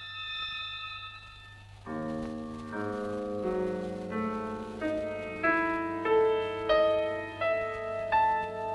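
Film score: a high held string chord fades out, and about two seconds in a piano enters with a low chord. Then single struck notes come about every 0.7 s, climbing in pitch and growing louder.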